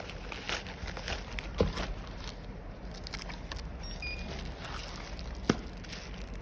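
Handling noises from an item and its packaging being unboxed: light rustles and taps, with a sharper click about one and a half seconds in and a louder one near the end.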